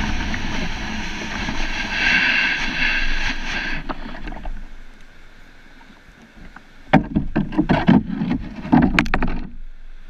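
Wind and water rushing past a kayak-mounted camera as the sea kayak moves, fading out after about four seconds. Then, about seven seconds in, a quick run of close thumps and knocks as the paddler walks up beside the beached kayak.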